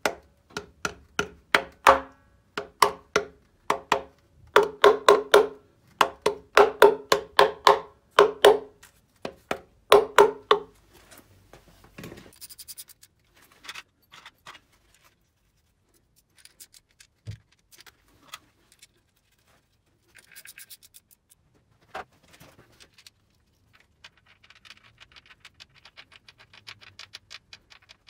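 Rapid series of sharp taps on metal, each with a short ring at the same pitch, for about the first ten seconds, as the rear main seal housing is knocked onto its locating dowel; then scattered clicks, a couple of single knocks and light scraping of tools and parts.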